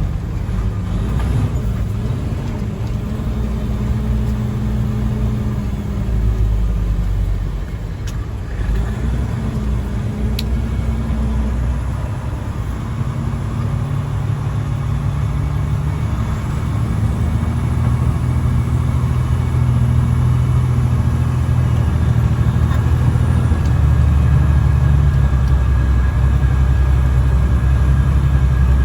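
Fully loaded logging truck's diesel engine pulling hard in first gear up a steep, slippery hill, with all three axles locked and chains on the tyres. The engine note dips briefly about eight seconds in, then grows steadily louder and stays high toward the end.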